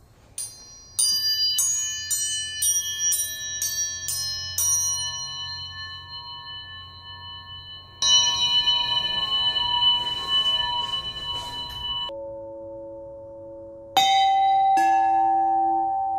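Metal bells struck one after another, about two strikes a second, each left ringing with several overlapping tones. The ringing then shifts abruptly twice. Near the end a single loud strike leaves a lower, steady ringing.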